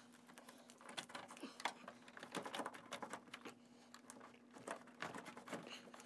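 Faint, irregular clicks and rustles of a copper fish wire and a power cable being pulled up through the plastic housing of a mini-split indoor unit.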